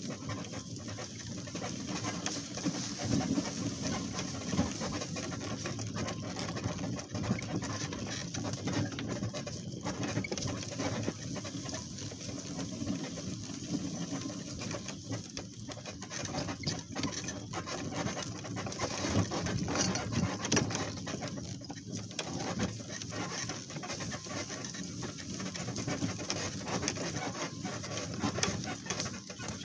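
Steady heavy breathing over uneven footfalls on the ground while walking, with the loudness rising and falling throughout.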